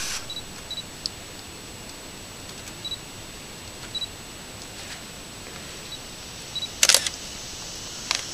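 Close rustling and scraping on a Browning Recon Force trail camera as a hiker handles it, with the loudest scrape about seven seconds in. Under it the camera's own microphone hiss carries a steady high whine, with short faint double chirps now and then.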